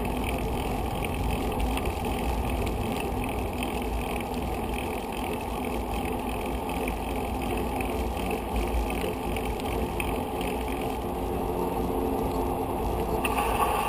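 Steady wind rumble on the microphone with the rolling noise of a touring bicycle on a paved road.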